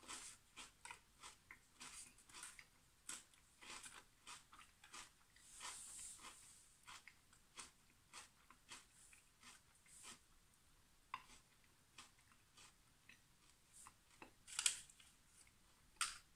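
Close-up chewing of a crunchy chocolate cornflake cake: soft crisp crunches several times a second, with a couple of louder clicks near the end.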